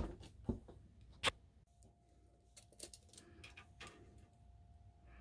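A few scattered sharp clicks and knocks, the loudest three in the first second and a half, with a faint steady tone coming in about 1.7 s in.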